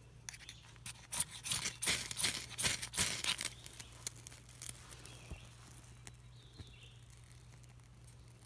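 Ferrocerium rod scraped with its striker to throw sparks onto tinder: a quick run of about a dozen sharp scrapes starting about a second in and lasting a little over two seconds, then quieter.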